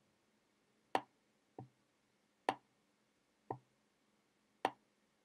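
Computer mouse button clicking about once a second, five clicks in all. Sharp, bright clicks alternate with duller, lower ones, as the mouse is pressed and released to drag objects on screen.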